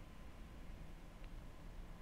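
Quiet room tone: a low steady hum with a faint thin tone, and one soft tick a little past a second in.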